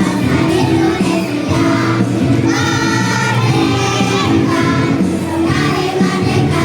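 Children's choir of fourth-grade schoolchildren singing a song together.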